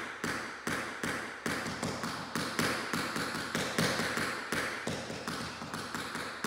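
Tap shoe's metal tap striking the studio floor in a steady run of even taps, about three a second, each ringing briefly in the large room.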